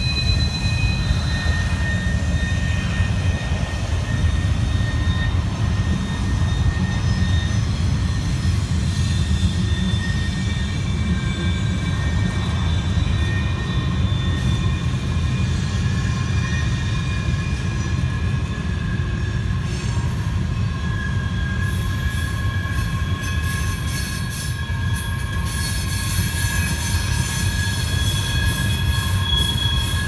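Loaded freight cars rolling around a tight curve. A steady low rumble from the wheels runs under thin, high-pitched wheel flange squeals that come and go.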